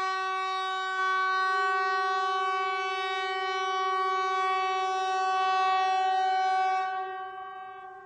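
Hesa Fredrik outdoor public-warning typhoon horn (model MKT 75/370) sounding one steady blast at a single pitch, rich in overtones, for about seven seconds as part of the VMA warning-signal test. It stops about seven seconds in and echoes away. The newly installed horn gives a clean tone, without the squeaky sound of a cracked one.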